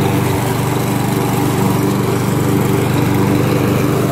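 Small engine running steadily.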